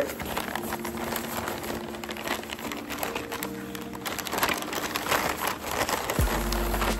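Wrapping paper and a plastic bag crinkling and rustling in irregular crackles as they are handled, over faint background music.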